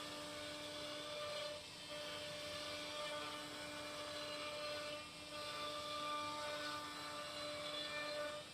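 CNC machine's spindle running with a steady whine, dipping briefly twice.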